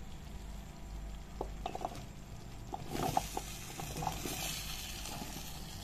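Chopped vegetable pieces (bottle gourd, eggplant) tumbling from a bowl into a steel pot of hot masala, with scattered knocks of pieces landing. A hissing sizzle starts about three seconds in as the vegetables hit the hot pan.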